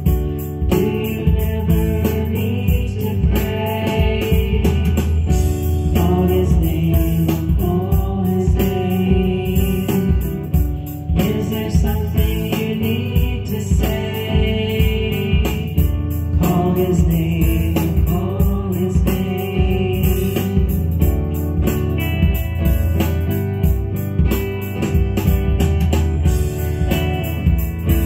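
Christian song with singing over a steady beat.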